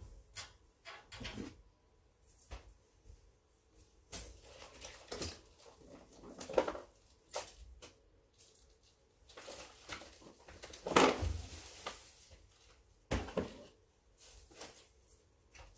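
Scattered knocks, bumps and rustles of someone moving about a small room, the loudest a thump about eleven seconds in.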